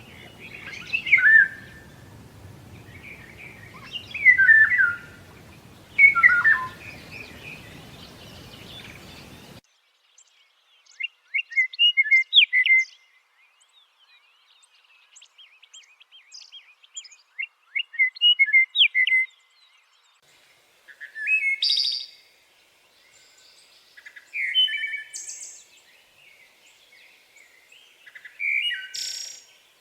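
Small songbirds singing: short, quick song phrases repeated every two to three seconds. A faint low hiss under the first third cuts off abruptly, leaving only the birdsong.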